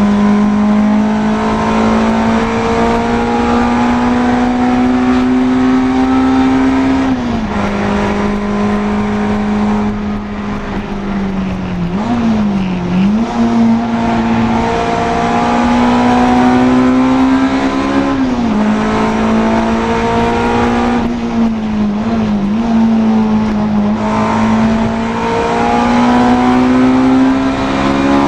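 Honda Integra DC2 race car engine running hard on track, its pitch climbing slowly as it pulls and then dropping sharply at gear changes, about seven seconds in, around eighteen seconds and at the very end. Twice the pitch falls and rises quickly, around twelve seconds and twenty-two seconds, as the car slows and changes down.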